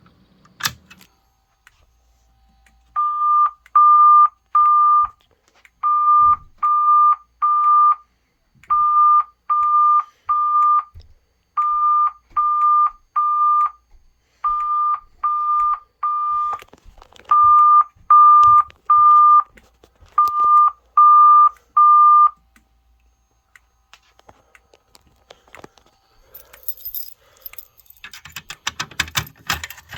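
Fire alarm speakers sounding the EST Boston evacuation tone on its own, with no voice message: a steady beep pulsed in groups of three, seven groups in all, before it stops about three-quarters of the way through.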